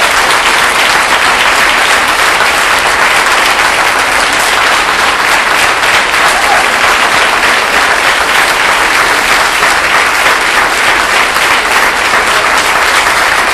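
Loud, steady applause from a large audience clapping together, a standing ovation at the close of a speech.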